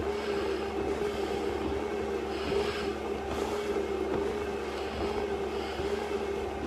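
Steady mechanical hum of a stair-climbing exercise machine running, with soft hissing breaths through a firefighter's full-face breathing mask every second or two.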